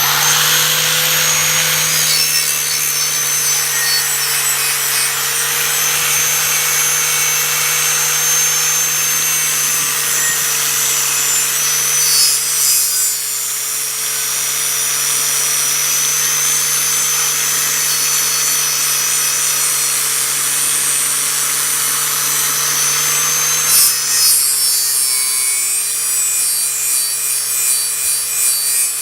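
Angle grinder running on a rusty steel cleaver blade, abrading the rust: a steady motor whine under a harsh scraping rasp. The load shifts about twelve seconds in and again near the end, when the whine dips briefly.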